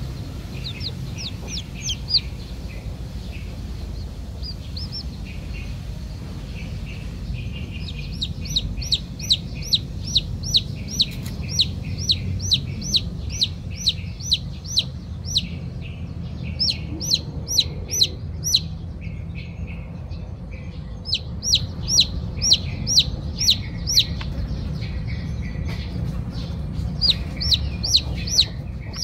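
Young chicks peeping: loud, high, downward-falling peeps repeated two or three a second in long runs with short pauses between. These are the insistent calls of chicks left without their mother hen.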